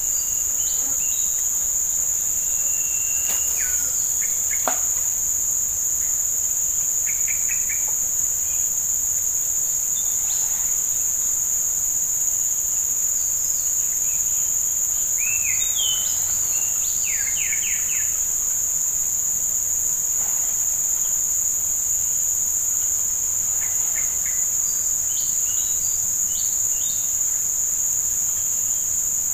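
Insects droning steadily at a high, unbroken pitch, with a few short bird chirps scattered through.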